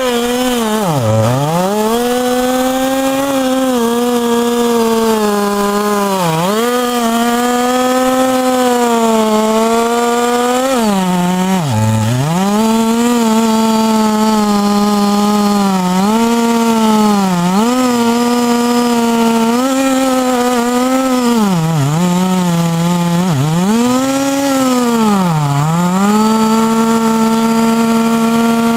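Two-stroke chainsaw running at full throttle while cutting a big log. Its high engine note drops sharply and recovers about a dozen times as the chain bogs down under load in the wood.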